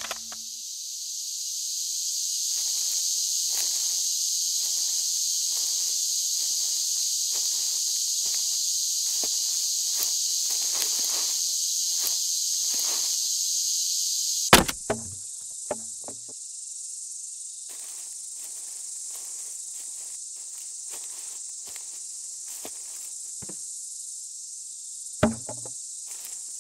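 Steady high buzzing of summer insects in woodland, loud for the first half, then dropping to a quieter drone. A sudden heavy thud about halfway through is followed by a couple of lighter knocks, and another thud comes near the end.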